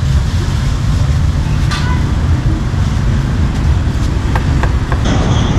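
Steady low rumble of street traffic, with a few light knocks of a steel cleaver on a wooden chopping board.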